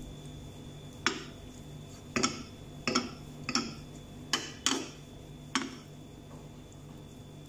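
A spoon knocking and scraping against a small frying pan while shredded chicken is stirred: about seven separate clicks over roughly five seconds, over a faint steady hum.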